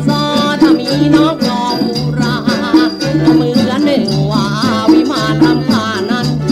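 Thai luk thung song playing: a steady repeating bass line under a melody with sliding, bending notes, with light shaker-like percussion.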